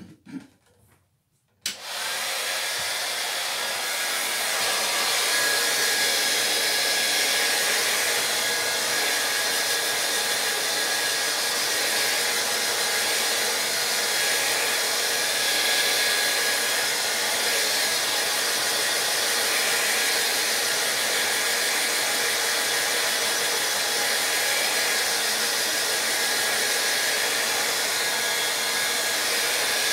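Hand-held hair dryer switched on about two seconds in, after a few light knocks, then blowing steadily with a faint high whine over its noise, drying a watercolour painting.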